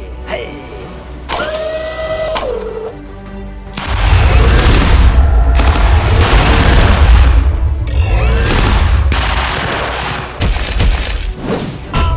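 Background music with a dense run of explosion and boom sound effects, loudest from about four seconds in until about ten seconds in, with a few more blasts near the end.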